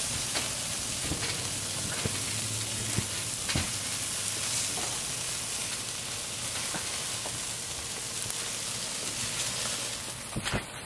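Chicken wings and leg quarters sizzling on a grill: a steady hiss with scattered pops and crackles. The sizzle gets quieter right at the end.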